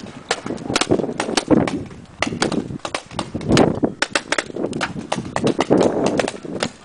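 Paintball markers firing: irregular sharp pops, several a second, from more than one gun.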